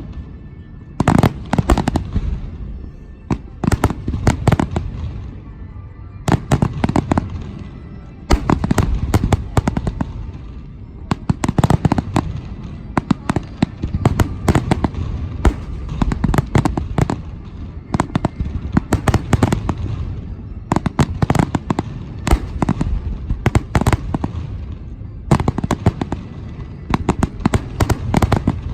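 Fireworks finale: a rapid, nearly continuous barrage of aerial shells bursting, with deep booms and sharp cracks following each other several times a second.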